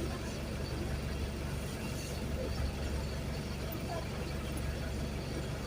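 Diesel engine of a Mercedes-Benz OF-1519 BlueTec 5 city bus running steadily, heard from inside the bus as a low, even drone.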